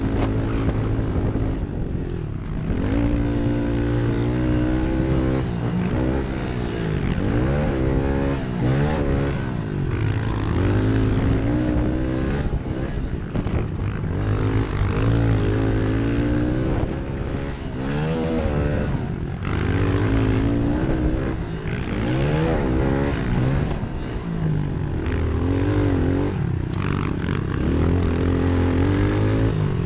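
Honda CRF110F pit bike's small single-cylinder four-stroke engine revving up and falling back over and over as it is ridden through the corners and jumps of a dirt track. A steady rush of noise runs under the engine.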